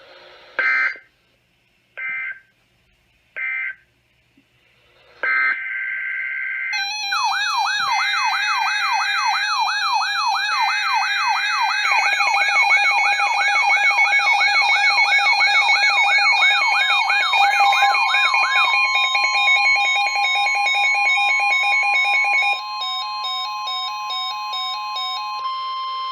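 NOAA Weather Radio EAS signalling played through several weather radios at once. Three short SAME data-burst squawks mark the end of one warning, then a longer data burst sets the radios' alarms off together: a fast warbling siren until about two-thirds of the way in, layered electronic beeping, and a steady 1050 Hz warning tone held to the end.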